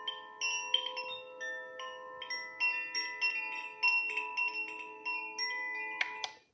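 Wind-chime wake-up sound from an A90 smart sunrise alarm clock: many struck metal tones ringing and overlapping at an irregular pace. It cuts off suddenly near the end.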